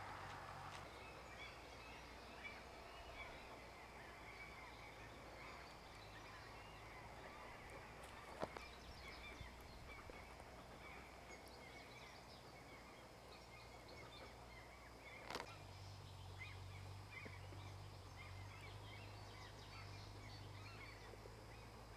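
Near silence: faint outdoor ambience of many small birds chirping in the distance, over a low steady hum. Two brief clicks, about eight and fifteen seconds in.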